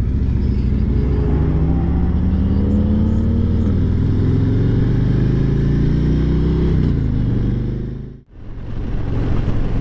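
Harley-Davidson Road Glide Special's Milwaukee-Eight V-twin running under way, its pitch climbing slowly as it gains speed and dropping back about seven seconds in. The sound cuts out briefly about eight seconds in, then the engine is heard again.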